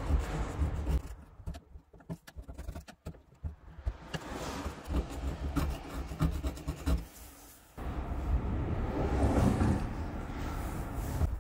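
Metal blade scraper scraping dried paint off the painted inner body panel of a Subaru Sambar van in short, uneven strokes. About three-quarters of the way through, a louder stretch of cloth rubbing over the panel follows.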